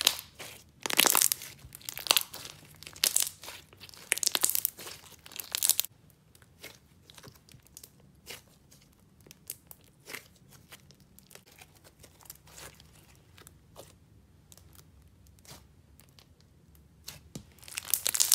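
Thick slime being pressed and stretched by hand, giving runs of sharp bubble pops. The pops come thick and loud for the first six seconds, then sparse and soft, then thick again near the end.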